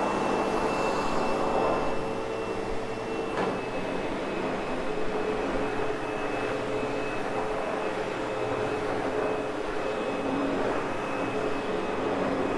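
Sebo X8 upright vacuum cleaner running steadily over a freshly cleaned wool rug, a continuous motor drone with a thin high whine, in a post-cleaning vacuuming pass to groom the pile and pick up loose fibres.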